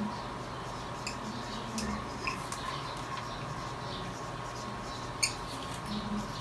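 Marker pen squeaking and scratching on a plastic-covered chart as words are written, in many short strokes, with a sharp tap a little after five seconds.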